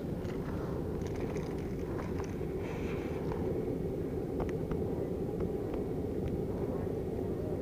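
A steady low rumble with faint scattered clicks and ticks as gloved hands work the hook out of a small milkfish.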